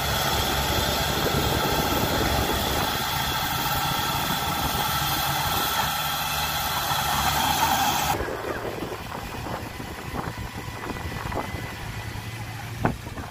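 Diesel engine of a small Komatsu D20-series crawler dozer running steadily while it pushes against a dump truck bogged in mud. About eight seconds in the sound cuts off abruptly to a fainter engine hum with a few sharp clicks.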